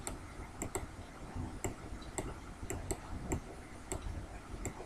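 A series of light, sharp clicks, about two a second and not quite evenly spaced, some in close pairs.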